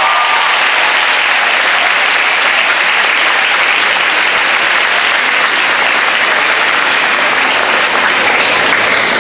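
A large audience of schoolgirls applauding steadily and loudly, a dense, even clapping with no break.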